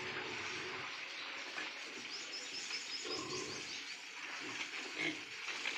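Two-month-old pigs grunting in short, rough bursts, several times, over a constant hiss.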